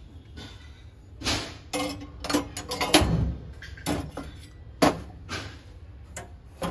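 Brass utensils handled and set down, giving a string of knocks and clinks, a few with a short metallic ring. The loudest knocks come about three seconds in and near the five-second mark.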